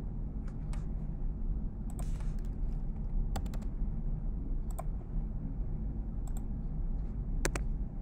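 Computer keyboard keys tapped a few times, scattered sharp clicks spread out rather than fast typing, over a steady low background hum.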